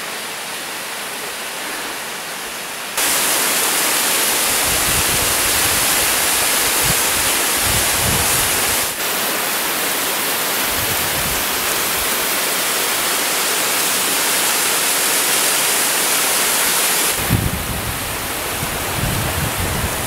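Steady rushing of water from a partly frozen mountain waterfall, with low gusts of wind buffeting the microphone. The rush jumps louder about three seconds in and eases back a little near the end.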